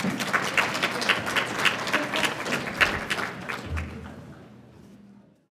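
Audience clapping in a large hall. The applause thins out after about four seconds and fades away just before the end.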